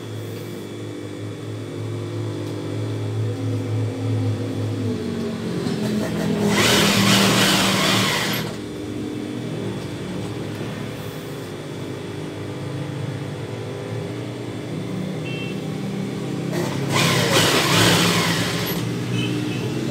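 Sewing machine stitching a strip of extra cloth onto the edge of chiffon fabric. It runs in two bursts of about two seconds each, about six seconds in and again near the end, over a steady hum.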